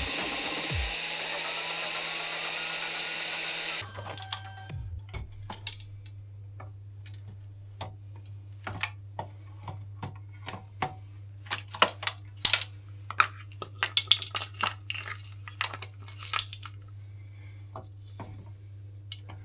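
A power tool running steadily, cutting off suddenly about four seconds in; after that, irregular light metallic clinks and taps of small parts and tools being handled, over a low steady hum.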